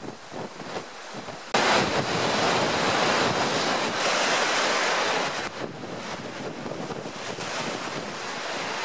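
Föhn storm wind buffeting the microphone over rough lake water with waves breaking. The wind noise jumps suddenly louder about a second and a half in and eases off again about five seconds in.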